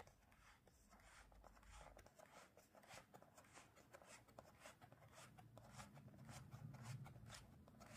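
Faint scratchy rustling of card sliding against card as the wheel of a children's movable picture book is turned, in many short rasping strokes.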